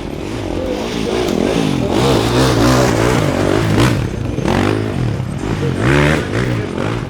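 Enduro motorcycle engines revving hard, the pitch climbing and dropping again and again as the throttle is worked, loudest in the middle of the stretch.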